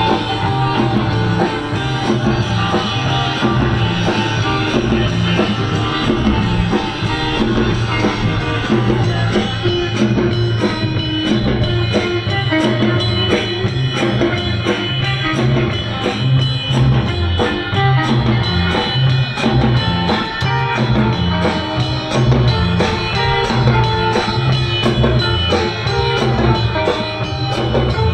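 Surf-rock music with guitar and a drum kit keeping a steady beat.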